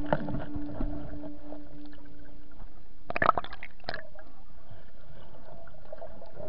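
Water sloshing and gurgling heard through a waterproof camera held in the sea, with a cluster of splashy clicks about three seconds in as the camera nears the surface amid bubbles.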